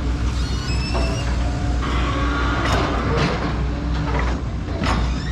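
Diesel engines of backhoes (hydraulic excavators) running steadily at river dredging work, with a few sharp metallic clanks and brief high squeaks from the machinery.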